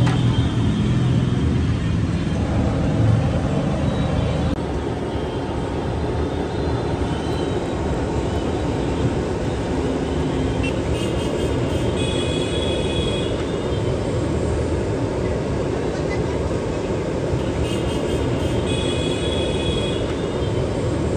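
Busy roadside ambience: steady traffic noise with background voices, louder in the first few seconds. Short high-pitched tones sound twice, about halfway through and near the end.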